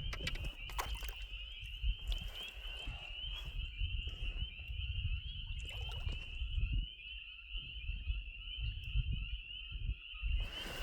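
A steady, high-pitched chorus of frogs calling from the pond, with a fainter lower-pitched chorus joining about a third of the way in. An uneven low rumbling noise runs underneath.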